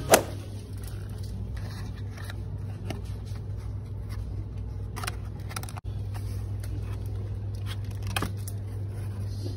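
Indoor room tone with a steady low hum, broken by a few light taps and rustles as cardboard candy boxes are handled on a shelf.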